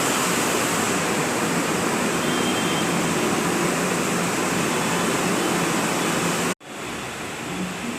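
Heavy rain pouring steadily, a loud even hiss. About six and a half seconds in it cuts off abruptly and gives way to a quieter steady background noise.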